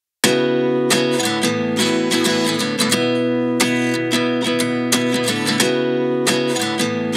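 Background music: an acoustic guitar strumming chords in a steady rhythm, starting abruptly just after a moment of silence.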